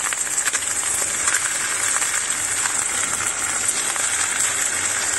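Cypriot wine sausage pieces and freshly cracked eggs sizzling in hot oil in a stainless steel frying pan, a steady hiss with fine crackling.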